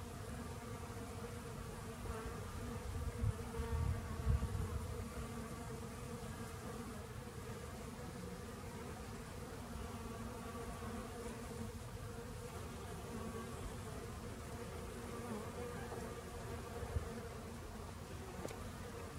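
Honeybees buzzing as they forage on flowering ivy: a steady hum from several bees, louder for a couple of seconds about three seconds in.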